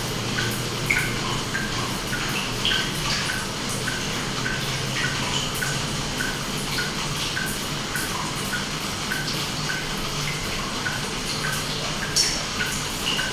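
Aquarium water dripping and bubbling: small drops plink about twice a second over a steady watery hiss and a low hum.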